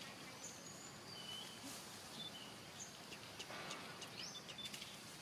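Faint outdoor ambience: a steady background hiss with scattered short, high bird chirps, and a faint rustle about three and a half seconds in.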